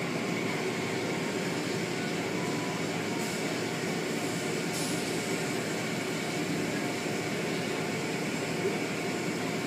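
Car wash machinery running, a steady unbroken rushing noise with a faint hum.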